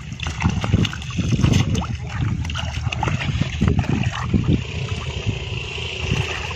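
Shallow muddy pond water splashing and sloshing in irregular strokes as a man wades and works a hand net through it, over a low rumble of wind on the microphone.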